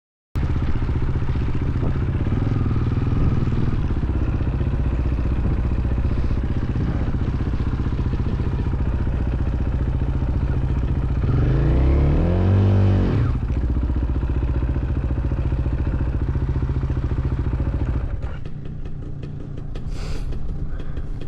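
Dirt bike engine running steadily at a low idle, with one throttle blip about halfway through that rises and falls in pitch. Near the end the engine note drops lower and quieter, with light clattering ticks.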